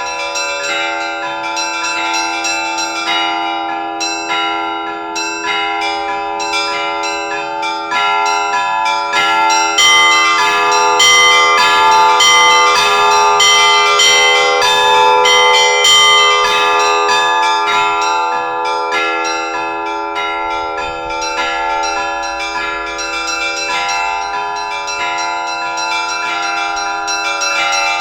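Russian Orthodox church bells ringing a peal (zvon): several bells of different pitches struck in a rapid rhythmic pattern over the sustained hum of a lower bell. About ten seconds in the ringing grows louder and denser with high bells, then eases off after about twenty seconds.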